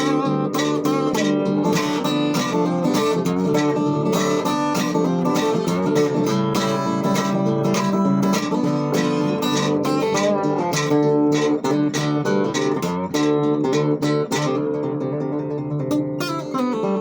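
Acoustic guitar music: quick picked notes and strummed chords, several notes a second.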